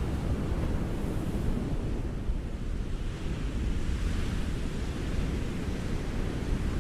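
Ocean surf breaking on a beach: a continuous wash of waves with a deep rumble underneath, and a hissing surge of a wave running up the shore midway through.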